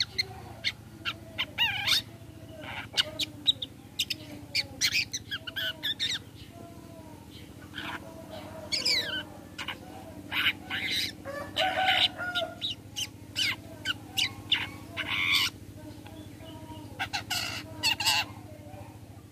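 Long-tailed shrike (cendet) singing a fast, varied string of sharp chirps and quick falling whistles, broken by a couple of harsh rasping bursts in the middle.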